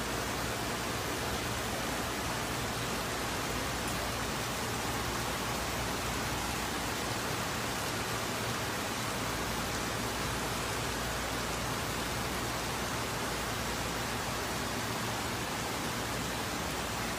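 Heavy rain falling steadily on a flooded street, a continuous even hiss.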